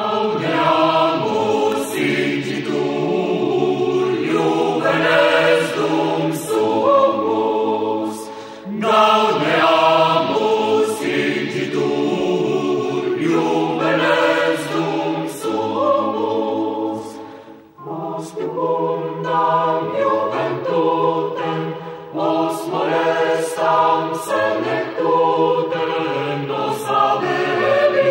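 Choir singing, many voices in harmony, with a short break about eighteen seconds in.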